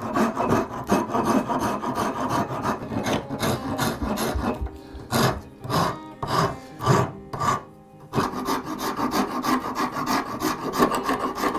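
Hand rasp strokes on a hardwood handle scale, removing waste down to sawn depth stops: a quick run of rough scraping strokes, slowing to a few separate strokes about halfway through, then quick again.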